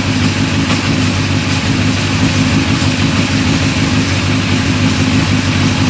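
2005 Honda CBR1000RR Fireblade's inline-four engine running steadily at idle.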